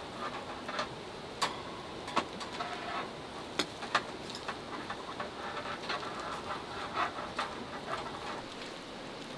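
Steady patter of rain, with the wet smearing and plastic-glove rustle of chili paste being rubbed onto pork ribs, and a handful of sharp taps scattered through it.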